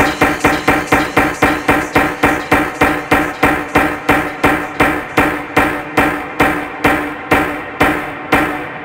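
House music with no vocals: a repeated sharp percussive hit over a held tone. The hits space out steadily, slowing from about five a second to about two a second.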